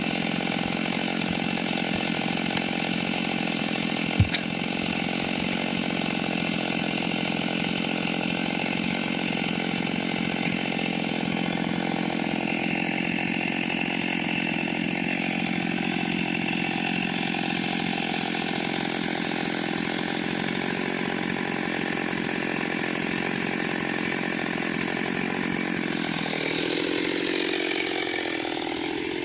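Small chainsaw running steadily under load, cutting into the trunk of a large kapok tree. A single sharp knock comes about four seconds in, and the engine note changes near the end.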